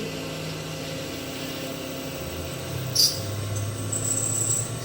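CNC milling machine running through a program: a steady machine hum whose low motor tones change pitch partway through, a short sharp click about three seconds in, then a thin high whine near the end.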